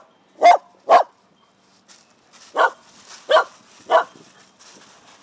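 Shetland sheepdog barking close by: three sharp barks in quick succession, then after a pause of about a second and a half three more.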